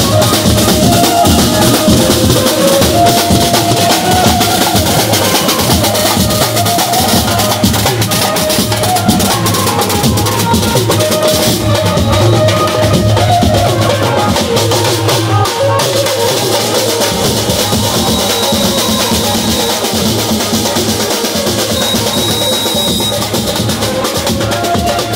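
Loud music with a driving drum beat and a melody line over it.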